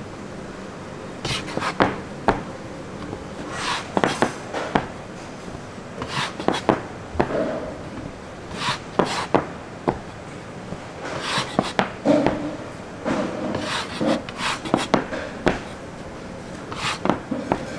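Youtiao dough being worked by hand on a wooden board: irregular sharp knocks and taps with rubbing and scraping between them.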